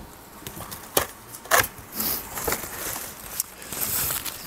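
Handling noise: a few separate light knocks and taps as the cordless stick vacuum's main body is set down on a wooden table, then rustling of packaging as a hand reaches into the cardboard box.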